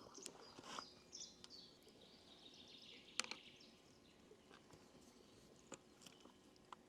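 Near silence: faint outdoor ambience with a few scattered small clicks, the sharpest about three seconds in.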